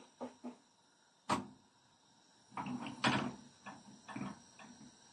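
Knocks and bumps of hand work with dough on a wooden board: two light knocks at the start, one sharp knock, the loudest, just over a second in, then a run of knocks and rustles as a sheet of flatbread dough is laid into a frying pan on the stove and pressed flat.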